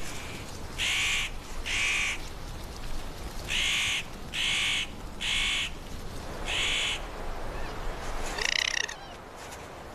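A series of six short animal calls: two, then three, then one, about a second apart. Near the end comes one brief higher call that rises in steps.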